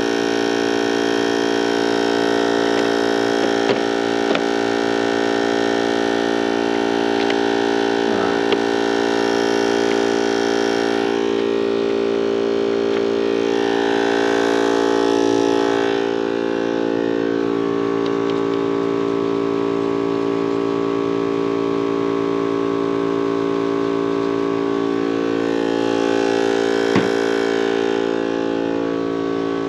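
A motor running steadily at one constant pitch, with a few light clicks and knocks of tools being handled.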